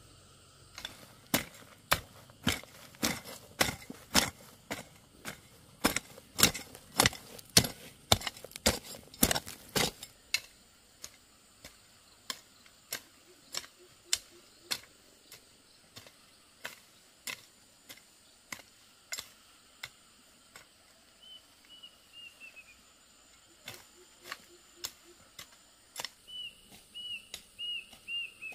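A run of sharp, irregular clicks or knocks, fast and loud for about the first ten seconds, then sparser and quieter.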